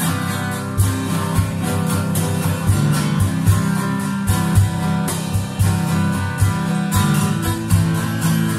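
Acoustic guitar strummed in a live band song, with steady sharp percussion hits keeping the beat.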